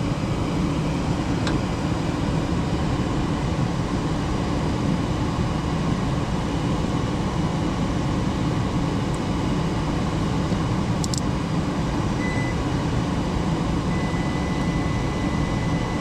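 Ultra-low-NOx gas furnace running: a steady low rumble of its blower and burner, with two faint clicks, one near the start and one about two-thirds through.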